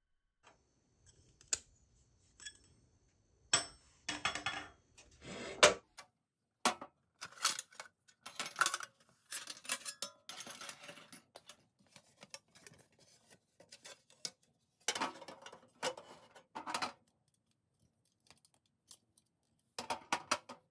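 Metal camping cookware being handled: a steel grill plate and a stainless wire grill grate taken out of and set onto a metal lunch box, with clinks, scrapes and rattles in bursts.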